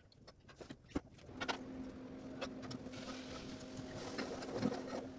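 A steady machine hum with one fixed low tone sets in about a second and a half in and runs on, with added hiss from about three seconds; before it, only faint scattered ticks.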